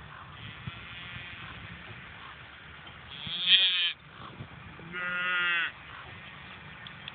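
A calf bawling twice with short bleating cries. The first is the louder and higher-pitched, about three seconds in, and the second follows a second later.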